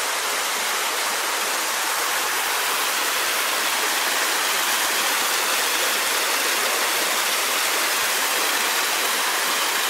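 Decorative fountain splashing steadily, a ring of thin water jets and a central bubbling jet falling into its basin in an even, unbroken hiss.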